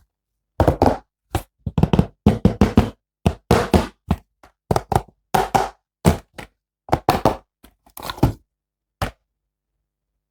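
Plastic action-figure toy and its packaging being handled: an irregular run of short knocks, taps and clacks, some in quick clusters, stopping about nine seconds in.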